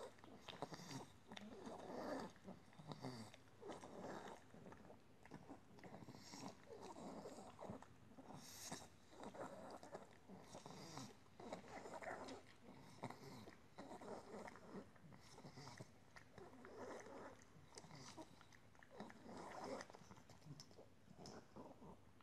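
A pug gnawing on a chew treat, making faint, irregular chewing and mouthing sounds.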